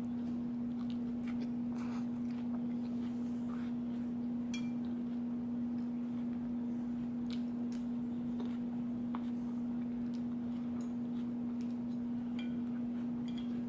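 A steady low hum at a single pitch, with faint, scattered clicks and crunches of someone eating a salad.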